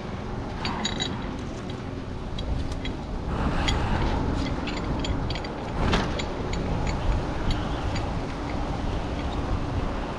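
Steady low rumble of wind and running machinery, with scattered light clicks and a single sharp knock about six seconds in.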